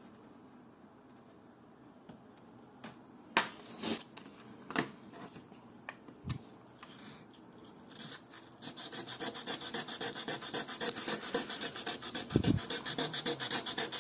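A few light clicks, then from about nine seconds in, fast rhythmic rasping strokes of fine 1600-grit sandpaper rubbed back and forth over a plexiglass (acrylic) watch crystal. The sanding takes out deep scratches and flattens the crystal's surface.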